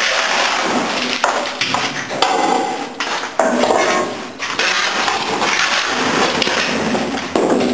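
Metal shovel scraping along the metal floor of a garbage truck's body, scooping up wet trapped refuse in repeated strokes with short breaks between them.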